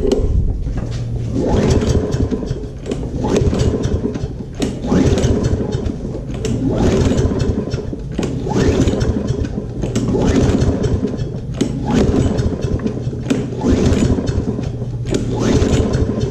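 Toro self-propelled push mower's small engine being pull-started with its recoil starter, about eight pulls roughly every two seconds, each a brief cranking surge. The engine cranks but does not catch: a no-start.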